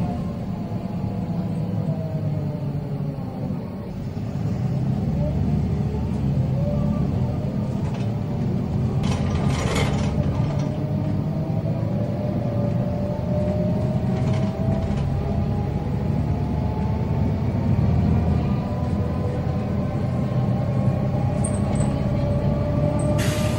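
MAN 18.280 city bus under way at road speed. The pitch of its engine and driveline falls at first, then climbs slowly and steadily as the bus gathers speed. Short bursts of hiss come about ten seconds in and again near the end.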